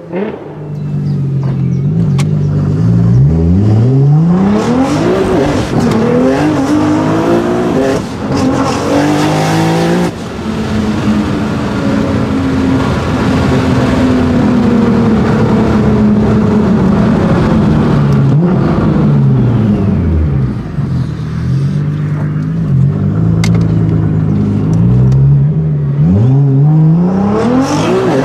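Nissan GT-R engine revving hard, its pitch climbing and falling several times. The sound cuts sharply about ten seconds in, then falls slowly in pitch and climbs steeply again near the end.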